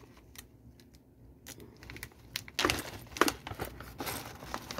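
A plastic bag crinkling as it is handled and opened, with the rough tumbling stones inside clinking against each other. It starts with a few small clicks, then gets busier and louder from about halfway through.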